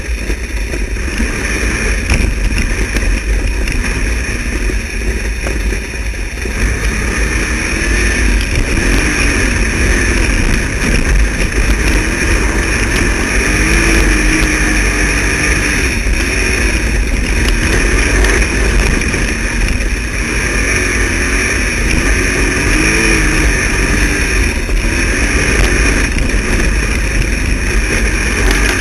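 Wingless sprint car's V8 engine running at speed on a dirt oval, heard from a camera mounted on the car. It is loud and continuous, and its pitch rises and falls over and over as the car works around the track.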